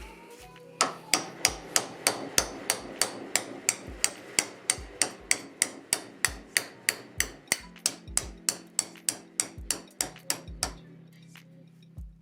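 Hammer tapping in a fast, even series, about three blows a second, for some ten seconds, then stopping near the end.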